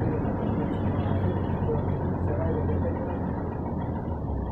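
Steady motor vehicle noise: a low engine hum under an even wash of road noise.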